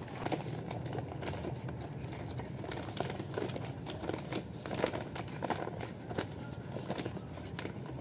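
Black plastic planting bag crinkling and rustling as it is handled and filled with crumbly soil, with many small irregular clicks and rustles throughout.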